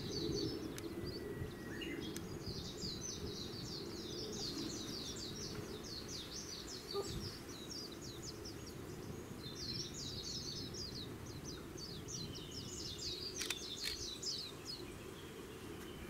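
A small songbird singing long runs of fast, high twittering notes, with a short break around the middle, over a low steady rumble.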